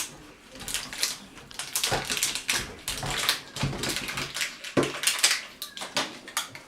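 Plastic wrapping of a toy surprise ball crinkling and tearing in irregular crackles as it is peeled open by hand.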